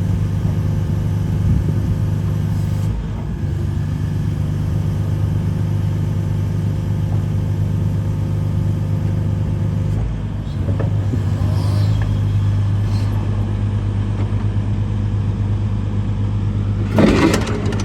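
Diesel engine of a 2008 Hitachi ZX140W-3 wheeled excavator running steadily at a constant speed, with a short, loud rattling burst near the end.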